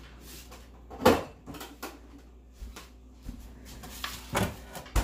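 A few sharp knocks and bumps from things being handled in a kitchen. The loudest comes about a second in, and two more fall near the end, with faint scuffing between.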